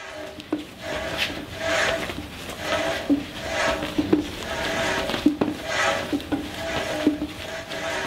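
Athletic shoes squeaking and thudding on a smooth floor during quick side-to-side cutting steps, a squeak or footfall about one to two times a second.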